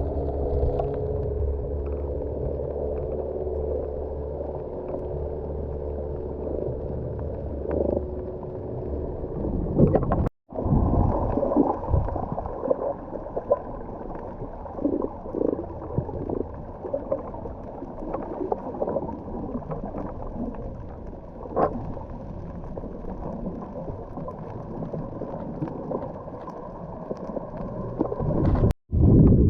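Muffled underwater sound picked up by a submerged camera while snorkeling. A steady low hum with a few held tones runs for about the first ten seconds, then cuts out briefly. After that come sloshing, bubbling swells and small clicks, with a second short dropout near the end.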